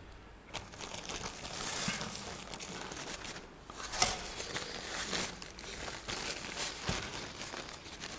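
Fingers packing thick lithium grease into a tapered roller steering-head bearing: irregular squishing and rubbing, with a sharper click about four seconds in.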